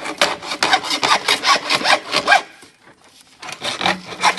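Hand saw cutting plastic plumbing pipe with quick back-and-forth strokes, about four a second. It pauses about two and a half seconds in, then starts sawing again.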